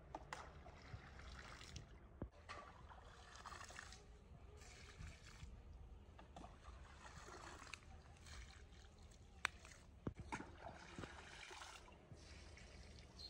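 Pond water scooped with a long-handled dipper and splashed onto a vegetable bed. It comes as faint, hissing bursts of splashing every second or two, with a few light knocks in between.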